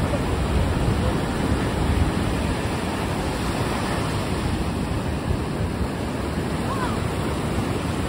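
Ocean surf breaking and foaming up the beach: a steady wash of waves, a little louder in the first couple of seconds.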